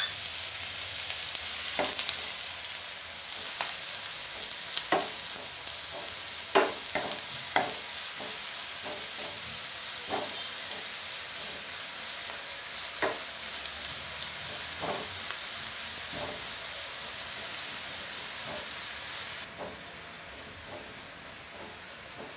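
Chopped onions sizzling in hot coconut oil in a nonstick frying pan, with irregular scrapes and taps of a spatula stirring them against the pan. Near the end the sizzle suddenly drops to a quieter hiss.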